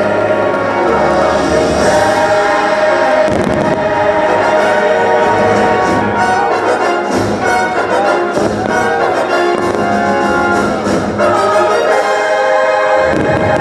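Orchestral music with brass and a choir, the soundtrack of a fireworks show.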